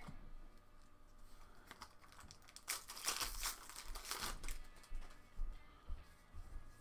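Foil booster-pack wrapper of Magic: The Gathering cards being torn open and crinkled by hand, loudest for about two seconds near the middle, with softer rustling of the wrapper and cards before and after.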